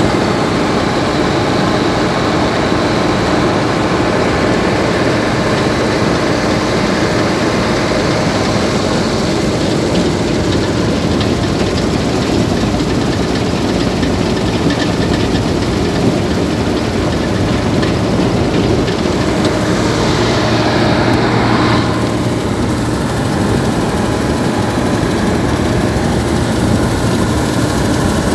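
Bizon Z056 combine harvester running steadily under load while harvesting wheat: its six-cylinder diesel engine and the header and threshing machinery make a loud, even drone, heard from the operator's platform. A brief higher hiss rises and falls about twenty seconds in.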